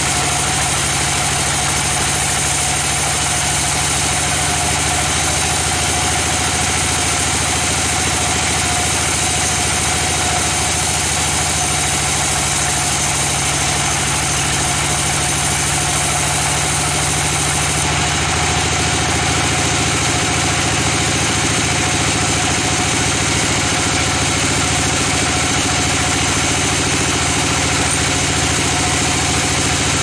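Sawmill band saw running steadily, its blade cutting lengthwise through a mahogany log under a continuous machine drone.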